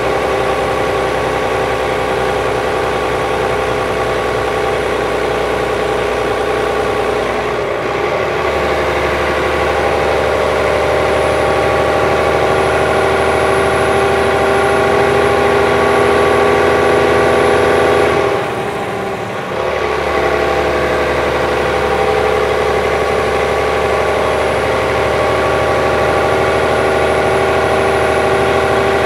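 A Volvo B12B bus's DH12E 12-litre six-cylinder diesel idling steadily. The sound dips briefly about eight seconds in, and again more deeply around nineteen seconds.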